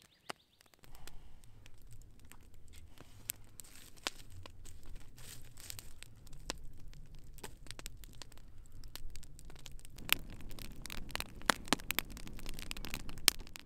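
Wood campfire crackling and popping over a low steady rumble of flame. The pops come thicker from about ten seconds in, with a few sharp, loud snaps near the end.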